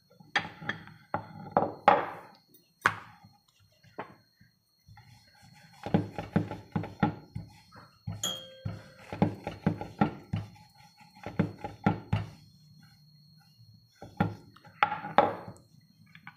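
A wooden rolling pin rolling pizza dough on a wooden board: a few separate knocks, then a spell of rapid knocking strokes with a low rumble as the pin goes back and forth, and another short burst of knocks near the end.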